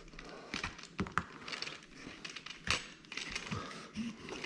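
Soft-top fabric being pressed and worked by hand into a header bow channel: scattered irregular clicks and scrapes over faint rustling.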